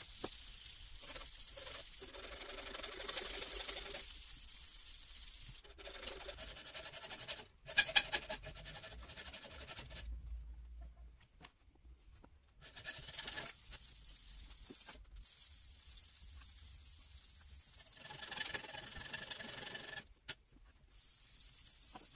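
Sandpaper rubbing back and forth over the steel of a hand-forged nakiri knife blade in steady stretches of strokes that stop briefly twice. A couple of sharp, loud knocks with a short ring come about eight seconds in.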